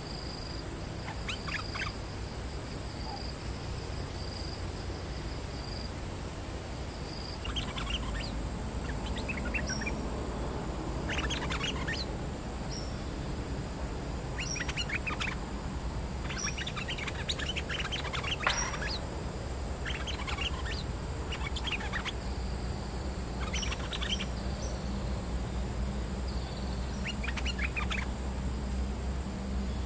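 Bulbuls calling: short bursts of quick chattering notes, repeated every few seconds. Behind them is a faint steady high-pitched hum.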